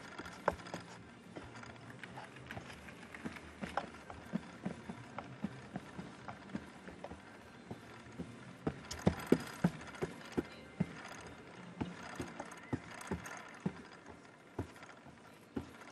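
Gymnast's hands striking and gripping the pommels and body of a pommel horse during a routine: a run of irregular thuds, with a cluster of louder ones about nine seconds in, over a low steady background.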